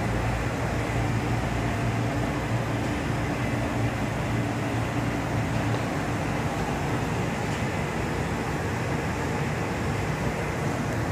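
Steady background noise with a low hum underneath, unchanging throughout.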